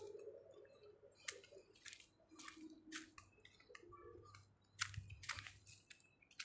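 Faint footsteps crunching on dry leaves and twigs over bare ground: short, irregular crunches about every half second.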